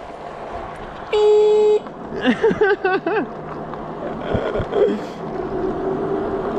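A single short vehicle-horn toot about a second in, a steady pitched blast lasting well under a second. It is followed by a brief warbling call and a faint steady motor hum.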